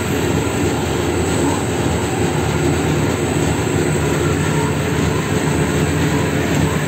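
Triple roll mill running: a steady mechanical drone from its motor and turning steel rolls, with a low hum under an even rushing noise.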